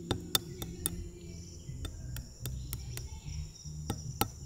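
Hot sugar syrup bubbling in a large pan, with irregular sharp pops as the bubbles burst. A steady high cricket trill runs behind it.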